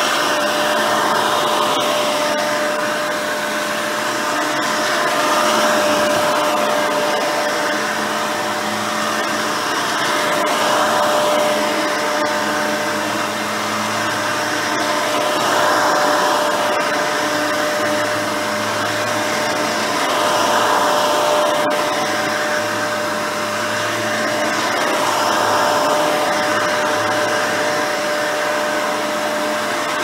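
Hoover Elite 350 upright vacuum cleaner, with a 5 amp motor, a seven-blade replacement fan and a red-bristle dual-row brush roll, running on carpet with a steady whine. Its sound swells and eases about every five seconds as it is pushed back and forth.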